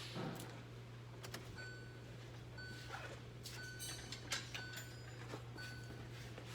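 The Hyundai Tucson's electronic warning chime beeping steadily about once a second, with a few light clicks of handling.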